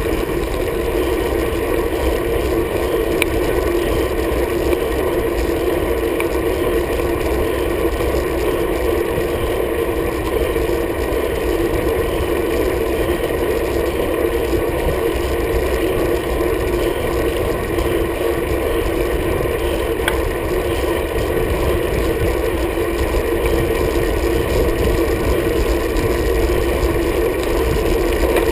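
Steady wind rush and tyre noise of a road bike riding at speed, picked up by a handlebar-mounted action camera, with an even drone in it and no breaks.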